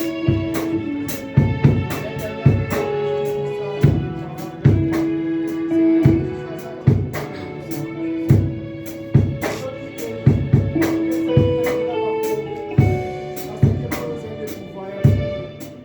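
Live church band playing: a melodic instrument holding notes over guitar and a drum kit keeping a steady beat.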